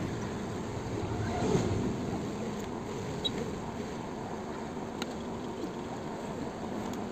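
Steady background noise with a few faint, light clicks of a screwdriver working the bolts on a motorcycle battery's terminals.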